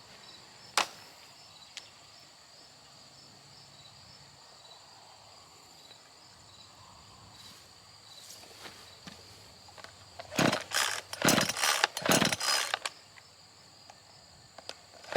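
Faint steady chirring of crickets with a single click under a second in. About ten seconds in, a quick run of loud rasping pulls on the recoil starter of an Echo CS-3510 gas chainsaw, trying to start it.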